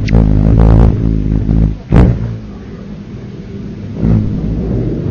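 Hummingbird wings humming: a low, steady buzz with even overtones, loud for the first second and a half, quieter after, then swelling again near the end. A short sharp sound cuts in about two seconds in.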